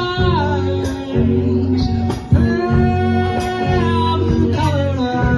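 Live rock band: a singer holds out the word "eyes" in long gliding notes over electric guitar, bass guitar and drums with steady cymbal hits.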